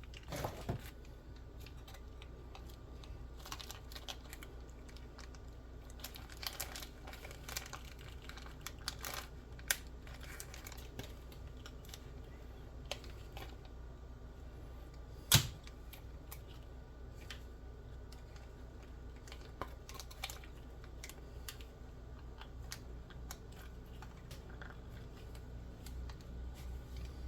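Scattered light plastic clicks and taps as an action figure's stand and its packaging are handled, with one sharper click about fifteen seconds in, over a faint steady low hum.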